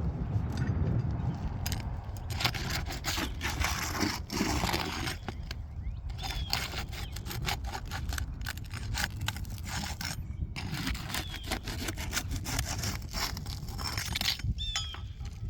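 A roofing snake tool scraping and prying under asphalt shingles, with many short clicks and knocks as the shingle and its nails are worked loose.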